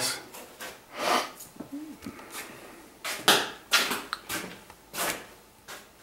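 A handful of short, scattered rustles and soft knocks from someone moving about and handling the camera, with a brief faint hum near two seconds in.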